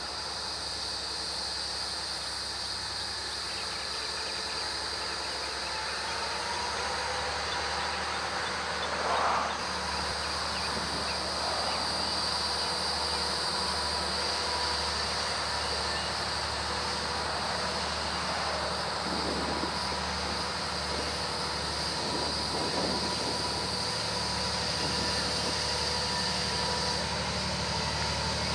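EMD GP59 diesel locomotive leading a freight train at slow speed, its engine running with a low, pulsing rumble that grows slowly louder as the train approaches.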